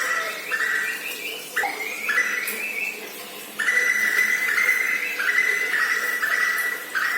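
A tuwu bird calling: a run of harsh, buzzy notes joined end to end, each about half a second to a second long and stepping up and down in pitch, softer from about 2 s to 3.5 s in and loud again after that.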